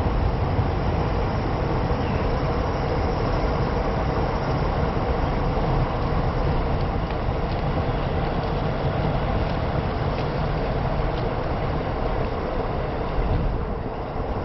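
Steady low rumble of vehicles, with no distinct events.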